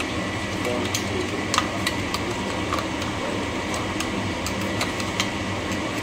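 A steady fan hum, with scattered light clicks of a metal utensil against a pan.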